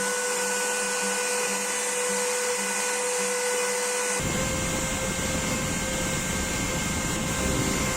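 Homemade CNC router's spindle running steadily with a high whine over a hiss. About four seconds in, the sound changes and a low rumble joins in.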